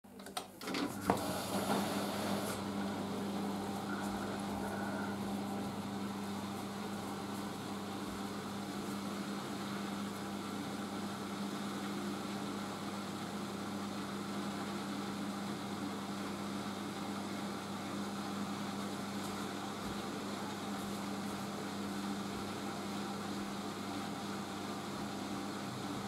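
Siemens Siwamat IQ 716 washing machine starting up: a few clicks as its control button is pressed, then a steady low hum from the machine as its program begins, with the drum not yet turning.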